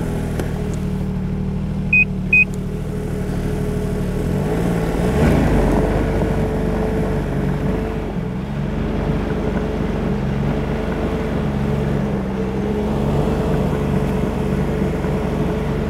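Snowmobile engine running steadily just after starting, pulling a loaded gear sled, its pitch rising a little about five seconds in. Two short high beeps sound about two seconds in.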